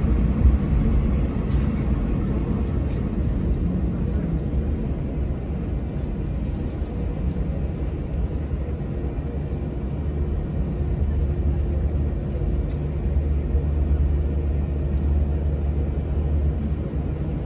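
Jet airliner cabin noise heard from inside the cabin: a steady low rumble with a faint hum.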